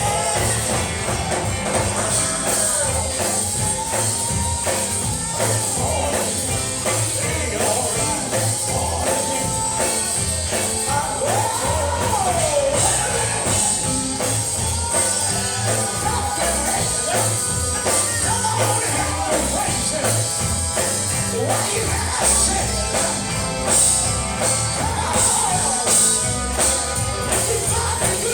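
Live gospel music with singing over a band keeping a steady, driving beat.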